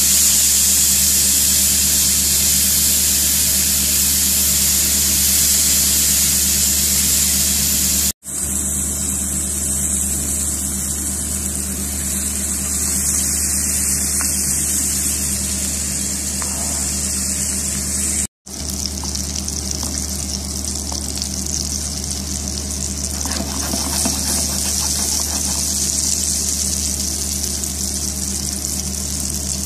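Beef steak sizzling steadily in a hot frying pan, later in foaming butter with garlic cloves. The sizzle breaks off for a moment twice, over a steady low hum.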